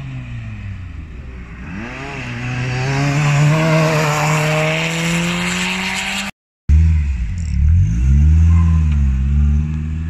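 A Renault Twingo's engine accelerating hard on a sprint track, its pitch climbing steadily and getting louder. After a sudden cut about two thirds in, another Twingo's engine runs close by at low revs, its pitch rising and falling as it is revved and pulls away off the line, too gently to count as a proper launch.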